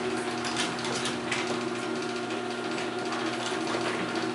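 Chamberlain-made chain-drive garage door opener (model 1245R) running on its test run after a gear and sprocket replacement, lifting the door: a steady motor hum with chain and trolley clicks and rattles over it.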